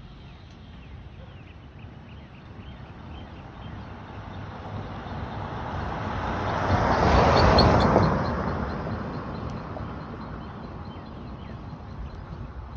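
A car passing along the street: its noise builds slowly, peaks about two-thirds of the way in, then fades. A rapid series of faint high chirps runs underneath.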